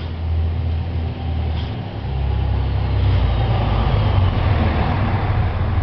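An engine running steadily at low speed, a deep even hum that gets louder about two seconds in and holds there.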